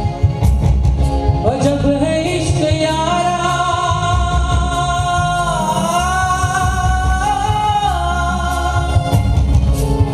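A man singing a Hindi film song into a microphone over an instrumental backing with a steady beat. About a second and a half in he rises into one long held note, which wavers in the middle and ends near the close.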